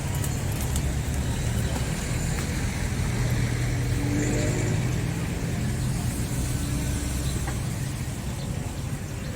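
A motor vehicle's engine running close by, a low steady rumble that swells through the middle and eases off near the end, like a vehicle passing.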